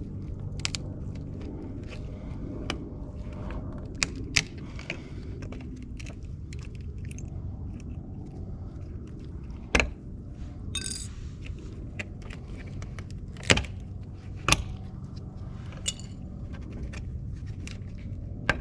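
Plastic pieces of an old Honda emblem being snapped and pried off the car, an irregular scatter of sharp clicks and cracks, the loudest about ten seconds in and again a few seconds later, over a steady low hum.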